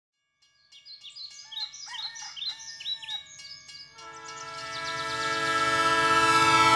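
Ambient music intro: bird-like chirps over a few held tones, then a sustained chord that swells and grows steadily louder from about four seconds in.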